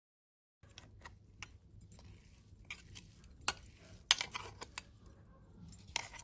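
Irregular light clicks and clinks of kitchen utensils against a dish, with a few louder clinks about halfway through and near the end.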